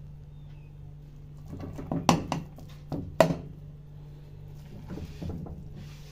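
Metal ladle scooping chicken biryani out of a steel pot and knocking against the pot, with a few sharp clinks, the loudest about two and three seconds in, over a steady low hum.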